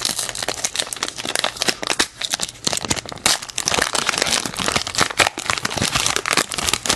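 Pokémon booster-pack wrapper crinkling as it is opened by hand: a dense run of irregular crackles.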